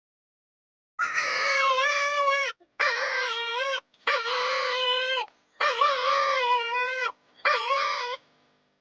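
A dog howling: five long, wavering, drawn-out calls with short breaks between them.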